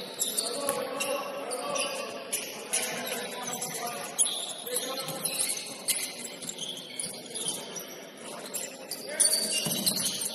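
Basketball game in a gym: scattered short, high squeaks and sharp clicks from play on the court, over players' voices.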